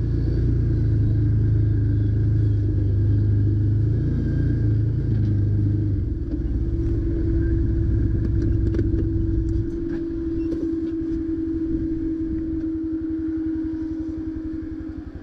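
Side-by-side UTV engine running as the machine drives, a heavy low rumble that drops away about ten seconds in, leaving a steady idle hum.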